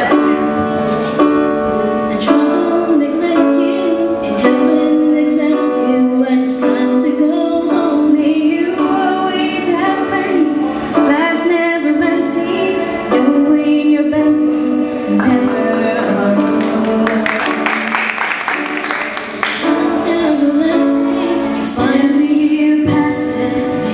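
A small group of women singing a song together into handheld microphones, amplified over a sound system.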